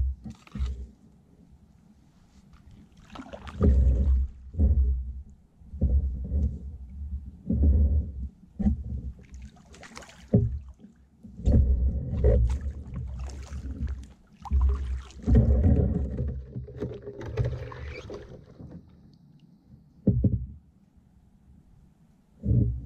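Kayak paddle strokes: the blade dipping and pulling through calm water about every second or two, each stroke with a deep rumble. There are pauses between runs of strokes near the start and near the end.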